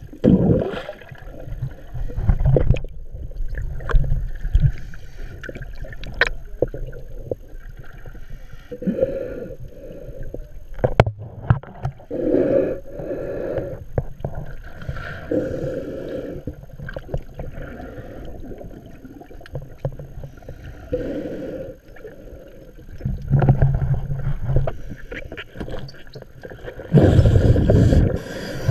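Underwater sound of a scuba diver's breathing: bursts of exhaled bubbles gurgling every few seconds, the loudest near the end. Knocks and rubbing on the camera housing, with a sharp click about eleven seconds in.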